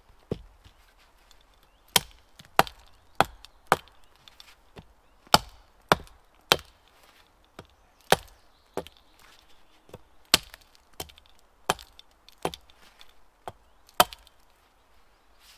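Wood being chopped by hand with a bladed tool: about eighteen sharp blows, roughly one every half second or so, in short runs with brief pauses. These are angled cuts into timber brace sections.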